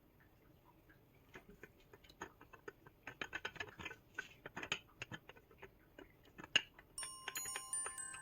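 A quick, irregular series of light clicks and taps, densest in the middle, with one sharper tap near the end. Bright mallet-percussion music, glockenspiel-like, comes in about a second before the end.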